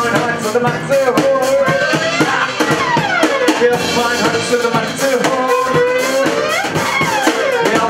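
Live band playing a song: bowed fiddle with sliding notes over banjo, guitar and drum kit, with a singer's voice.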